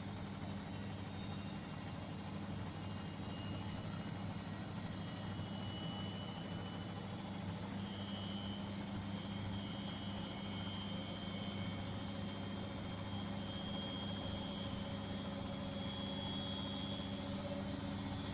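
Beko washing machine running its spin cycle: a steady motor hum with a thin high whine that wavers slightly in pitch.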